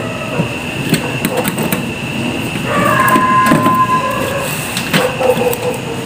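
Scattered clicks and metal taps as a replacement magnetron is seated and fastened into a microwave oven's sheet-metal housing. A brief whistle-like tone comes about three seconds in.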